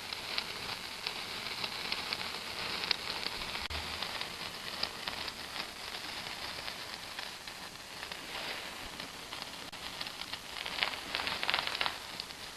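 Garden firework fountain burning with a steady hiss and dense crackling, which thickens and grows louder shortly before the end.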